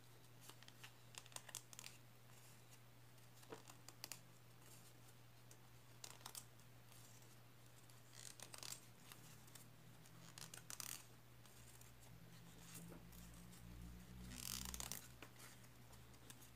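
Faint rustling and crinkling of a rolled paper strip being folded over and handled by fingers, in short scattered bursts, over a steady low hum.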